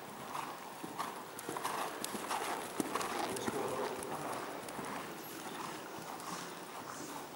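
Hoofbeats of a horse cantering on arena sand.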